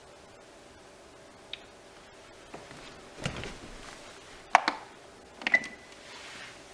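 A series of sharp clicks over a faint steady hum, loudest in a close pair a little past halfway, with another pair right after that ends in a brief high beep.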